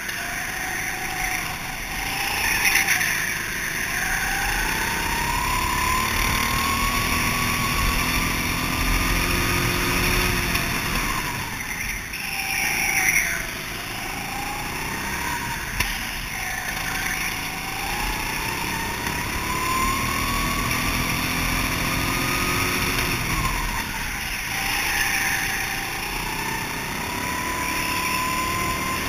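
Go-kart engine heard from onboard, revving up in long rising sweeps and dropping back sharply again and again as the kart is driven around the track.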